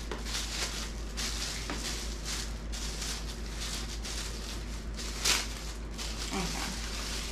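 Plastic packaging rustling and crinkling in short bursts as a pair of sunglasses is unwrapped, with one louder crinkle about five seconds in, over a low steady hum.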